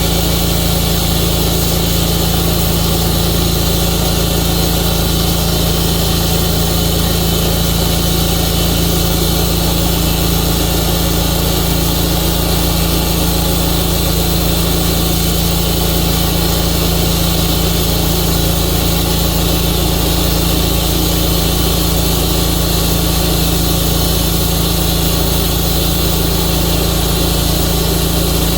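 Tru-Cut sawmill's engine running steadily at a constant speed, with a strong low hum and a hiss on top that do not change.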